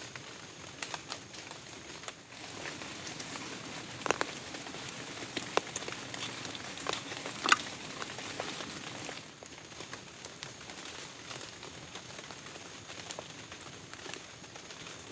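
Heavy rain falling steadily, with irregular sharp taps and cracks of drops; a few louder ones come in the middle. The rain swells a couple of seconds in and eases back after about nine seconds.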